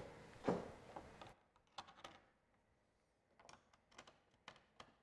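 Near silence with a few faint, scattered clicks.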